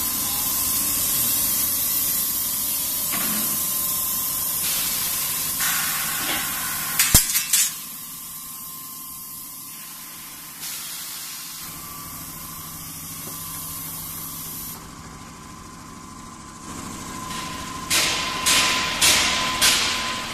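Steel bar peeling and straightening line running: a steady loud hiss with a thin high whine, which drops back after a quick cluster of sharp clicks about seven seconds in. Four or five sharp knocks follow near the end.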